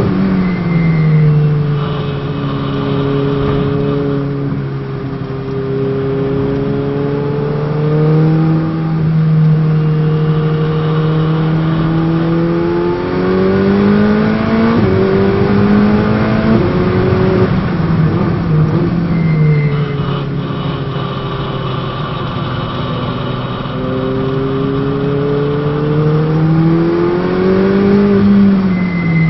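Ferrari 488 Challenge's twin-turbo V8 on track. Its note drops sharply about a second in as the car brakes hard from high speed. Through the corners that follow it holds and then rises and falls several times as the throttle comes on and off.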